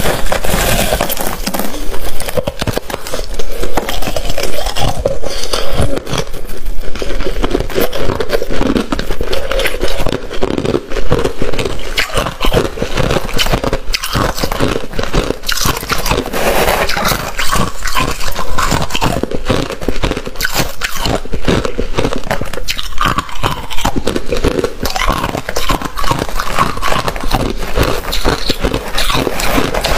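A person biting and chewing crunchy white ice close to the microphone: a loud, continuous stream of crisp crunches and crackles.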